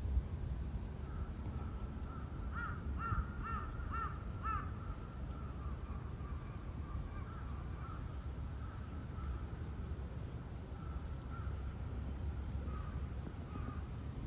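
Crow cawing: a quick run of five short caws, about two a second, a couple of seconds in, then fainter scattered calls, over a low steady outdoor rumble.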